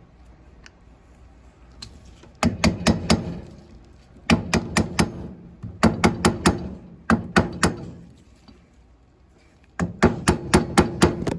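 Hard knocks struck in quick succession, in five bursts of several blows each, with short pauses between the bursts.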